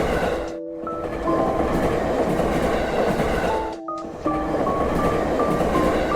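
Train running with a steady rumble and clatter, with a melody of held notes over it. The sound drops out sharply for a moment about half a second in and again near four seconds.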